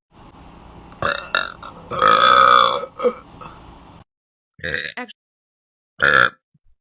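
A person burping several times in short succession. The longest and loudest burp comes about two seconds in, then two short burps near the end, with sudden dead silence between them.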